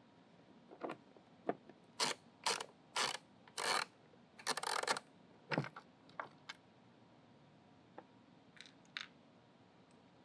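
Hand ratchet wrench clicking in a series of short strokes as the 10 mm bolts holding a vacuum motor are loosened. The strokes stop after about six and a half seconds, and a few faint clicks follow near the end.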